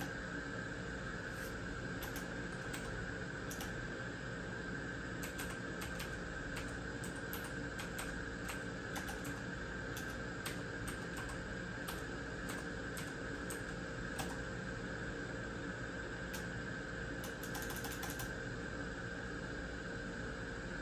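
Typing on a Thermaltake Level 20 RGB mechanical keyboard with clicky Cherry MX Blue switches: irregular key clicks, with a quick run of presses near the end, over a steady hum.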